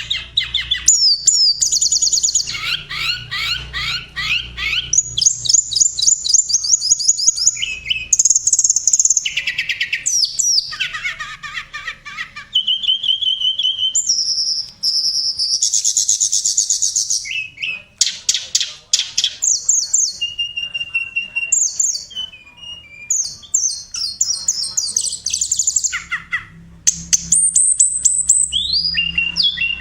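A tledekan songbird singing a long, varied song: fast trills, rapid runs of repeated notes, short whistled notes and quick sweeping chirps, broken by brief pauses.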